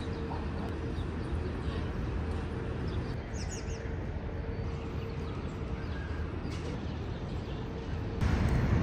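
Outdoor city ambience: a steady low background hum with a few faint bird chirps about three seconds in. The background grows louder just before the end.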